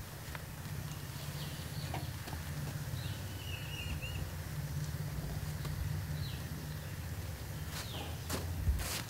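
Heavy sacks of dry fodder being hauled off a trolley, with a few knocks and a thud near the end as one is lifted away. A steady low hum runs underneath, and birds chirp faintly.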